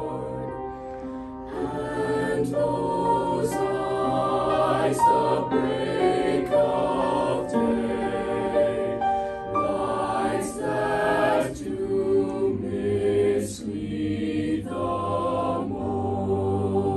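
Small mixed-voice high-school choir singing a madrigal in harmony: sustained chords sung in phrases, with brief pauses between them.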